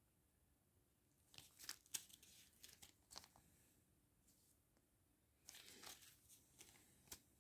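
Small clear plastic bags of round diamond-painting drills crinkling as they are picked up and handled, in faint rustling bursts about a second in and again around five and a half seconds in.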